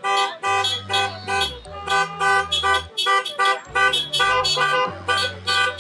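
Car horns honking from a line of passing cars: many short toots and a few longer blasts, overlapping, about two or three a second.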